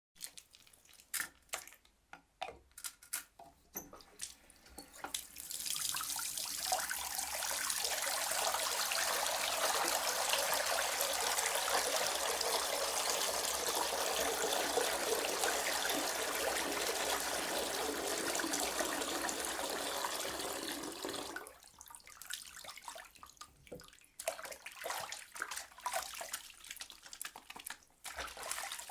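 Hands being washed at a sink faucet: a few scattered splashes and clicks, then the tap runs in a steady stream for about sixteen seconds and is shut off, followed by intermittent wet rubbing and splashing of soapy hands.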